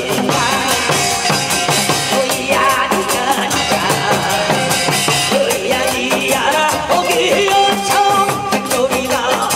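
Live Korean pumba (gakseori) folk music: a man singing over Korean drums and a small hand gong struck in a steady beat, with cymbals in the mix.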